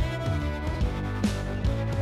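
Background music with a steady beat: held notes over regularly repeating drum hits.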